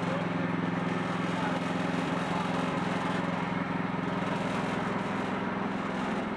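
Wood-Mizer band sawmill's engine running steadily at an even pitch.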